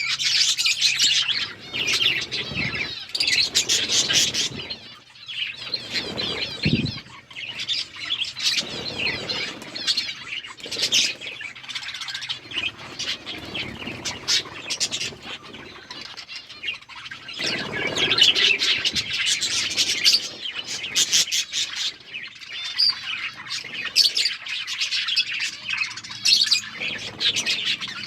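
A flock of budgerigars chattering and chirping together, many birds at once, the busy twittering swelling and easing off by turns.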